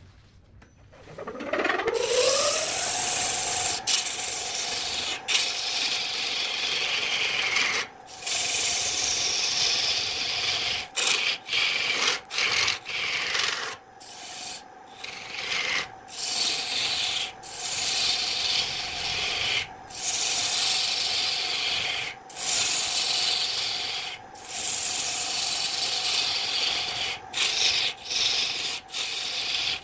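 Electric wood lathe whining up to speed about a second in, then running with a steady hum while a hand-held turning tool cuts the spinning wooden blank with a hissing scrape. The scraping comes in repeated passes, broken by many brief gaps where the tool is lifted off the wood.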